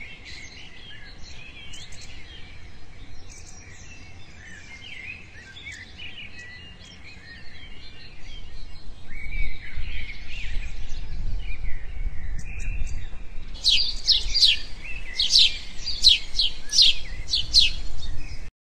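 Songbirds chirping, with a run of loud, rapid repeated chirps in the last few seconds. From about halfway a low rumble grows as a car approaches.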